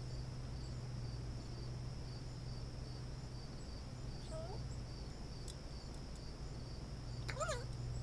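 Crickets chirping steadily in a high, even pulse over a low steady hum. A bird gives a short rising whistle about halfway through and a louder, wavering call near the end.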